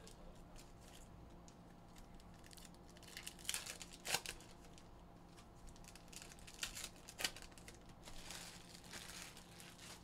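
Foil trading card pack wrappers being torn open and crinkled, in a few short rustling bursts and a longer stretch of crinkling near the end.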